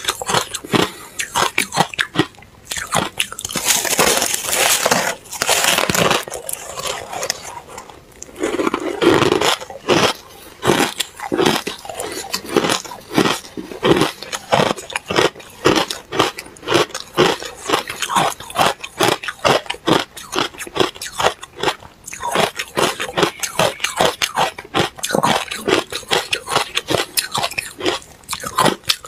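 Powdery freezer frost ice being bitten and chewed: a long, dense run of crisp crunches.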